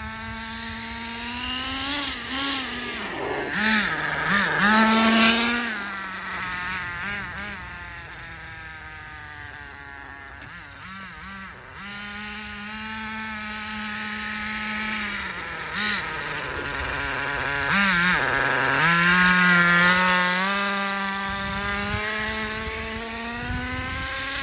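The small two-stroke nitro glow engine of a 1/10 scale ACME Conquistador RC truck running at high revs, with a buzzing, chainsaw-like note. Its pitch dips and climbs again several times as the throttle is eased and reapplied. It grows loudest twice, about four to five seconds in and again around eighteen to twenty seconds.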